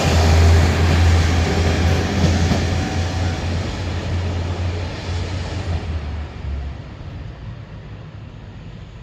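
KiYa E195 diesel-electric rail transport train running past and moving away, its rumble fading steadily.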